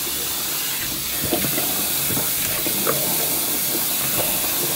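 Bathroom sink faucet running steadily with warm water, with small irregular splashes as water is scooped by hand onto the face to rinse it.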